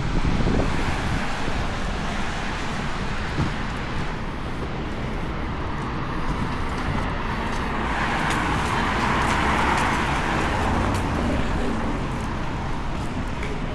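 Street traffic: a steady rumble of cars on the road, with one vehicle passing close, its tyre noise swelling and fading about eight to eleven seconds in.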